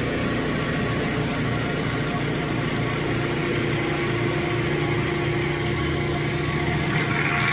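Pressure washer engine running steadily under load while the driveway is sprayed, a constant low drone with hissing water spray over it.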